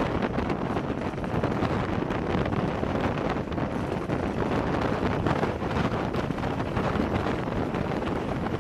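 Wind buffeting the microphone: a loud, steady rushing noise with no clear pitched engine note in it.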